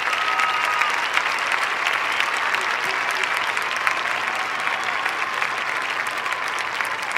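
Audience applauding at the end of a live sung performance, a dense, steady patter of many hands, with a thin high steady tone held over the first second.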